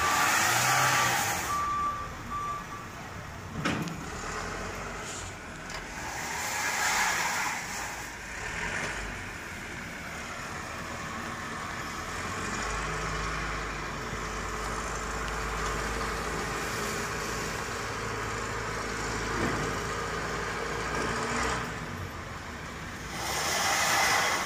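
A car stuck on glare ice, its engine running and wheels spinning in surges of hissing noise. A vehicle's reversing beeper beeps steadily for the first few seconds.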